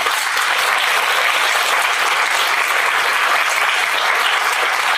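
Audience applauding: dense, steady clapping that starts all at once.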